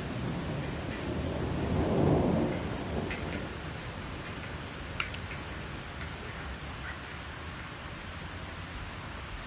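Hail and rain falling steadily, with a rumble of thunder that swells and fades about two seconds in. A few sharp ticks of hailstones striking stand out.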